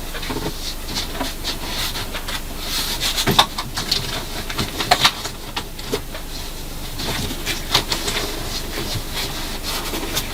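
Gear being handled and packed away: scattered clicks and light knocks with rustling, as a cable and equipment are put into a bag.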